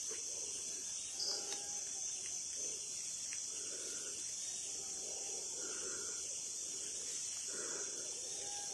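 Steady chirring of crickets and other night insects. Faint, short moaning tones come and go every second or so underneath, heard as a distant crying sound.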